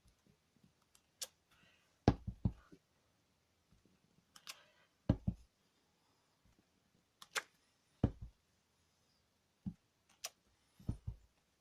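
Craft stamp being inked on an ink pad and pressed onto card on a tabletop, over and over: short knocks and taps every two to three seconds, some with a dull thud, with fainter scuffing between them.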